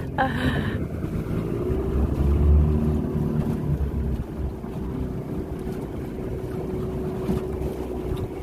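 Motorboat engine running steadily while the boat is under way; its note climbs a little in the first couple of seconds and then holds. Wind rumbles on the microphone, most strongly a couple of seconds in.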